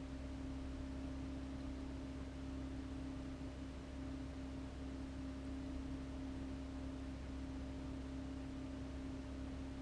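Steady hum of reef-aquarium pumps running, a constant low tone over a faint hiss.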